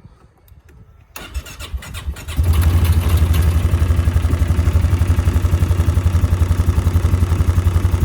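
Polaris Sportsman 450 HO ATV's single-cylinder four-stroke engine being started on its freshly changed oil: the electric starter cranks for about a second, the engine catches a little over two seconds in and settles into a steady, evenly pulsing idle.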